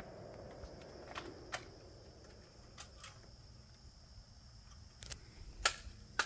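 Scattered light mechanical clicks and taps, with a few sharper clicks near the end, over a faint steady high-pitched whine.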